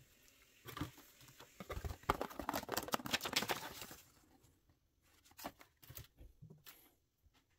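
Paper instruction sheets rustling and crinkling as they are handled for about three seconds, followed by a few light taps and clicks.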